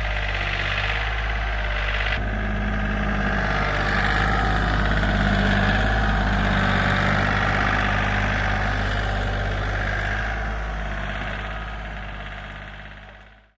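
Engine running steadily at a low, even speed, fading out near the end.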